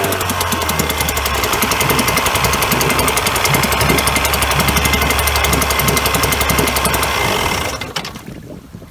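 1994 Force 40 hp two-cylinder two-stroke outboard motor running steadily at the dock with its cowling off, firing with a fast, even pulse on newly fitted Champion L76V spark plugs after an idle readjustment. The sound cuts off near the end.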